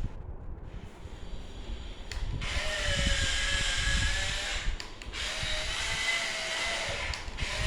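Small electric motors and plastic gearing of a transforming RC car whining in long runs, cutting out briefly twice and starting again: the transform mechanism is glitching and keeps running on its own.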